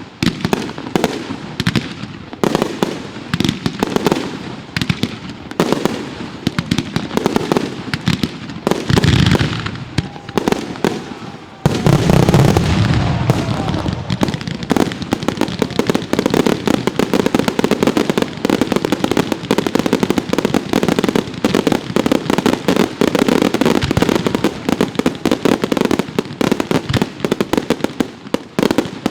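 Fireworks going off: a rapid string of separate bangs and crackles. About twelve seconds in, a sudden louder barrage of dense crackling bursts starts and keeps going.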